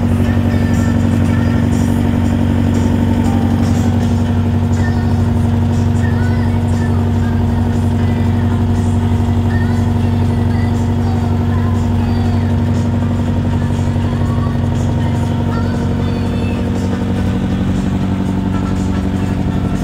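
Motor cruiser's engine running steadily under way, a deep even drone with no change in speed.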